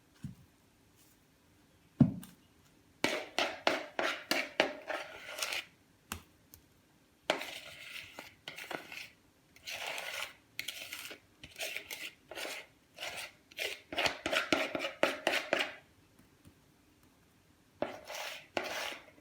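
Kitchen prep sounds: a knock about two seconds in, then several bursts of quick strokes of a utensil against a bowl or board, with short pauses between them.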